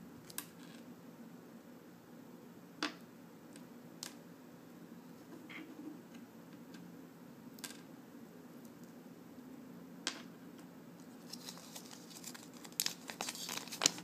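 A few single light clicks and taps as small lens parts and magnetic rings are handled and set down on the table, then from about eleven seconds in a busier run of paper crinkling and rustling as a folded instruction leaflet is picked up and opened.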